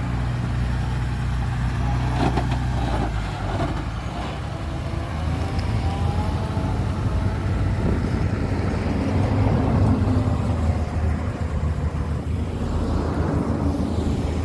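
Heavy diesel earthmoving machinery running with a steady low engine drone, its note shifting about three and a half seconds in, with a faint wavering whine over it midway.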